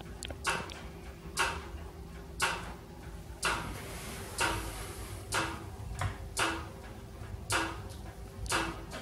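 La Nordica Isetta wood stove making a regular clicking noise, about one sharp click a second, each with a short low ring after it, over a faint steady hum.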